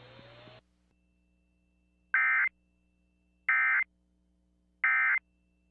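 Three short bursts of Emergency Alert System SAME digital data tones, the End of Message code that closes an alert. Each burst is under half a second long, and they come about 1.4 s apart.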